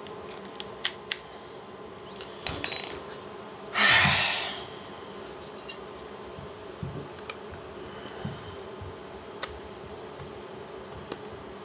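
Small screwdriver and screws clicking and tapping against a metal 2.5-inch hard-drive enclosure during assembly. There are two sharp clicks about a second in and scattered light ticks later, with one short, loud rush of noise about four seconds in. A steady low hum runs underneath.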